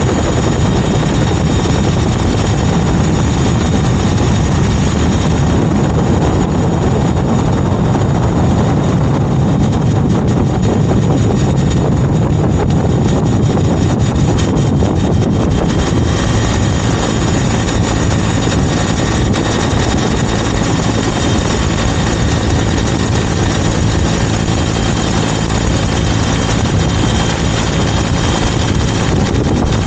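Helicopter in flight, heard close up from a camera mounted on its outside: steady rotor and engine noise with a thin high whine over it, never letting up.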